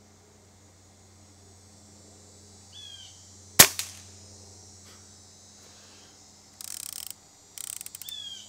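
A single shot from an AirVenturi AvengeX .22 PCP air rifle about three and a half seconds in: one sharp crack of compressed air firing a pellet. Near the end come two short rattling clicks as the rifle's action is worked to load the next pellet.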